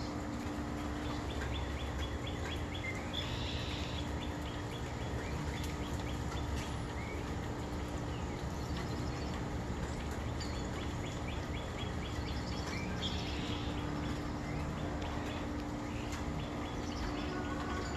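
Backyard birds calling: runs of quick, evenly spaced chips, about four a second, each run lasting a few seconds, with short brighter calls among them over a steady low hum.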